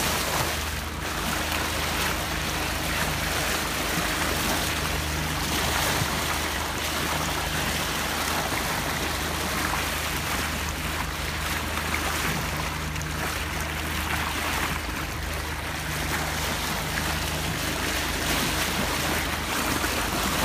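Sea water rushing and splashing along the hull of a sailboat under way, over the steady low hum of its auxiliary engine.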